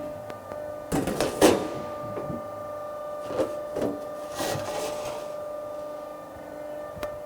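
Electric-hydraulic four-roller plate rolling machine humming steadily while it runs. Over the hum come several clanks and scrapes from the thin steel sheet being placed in the rollers, loudest about a second in.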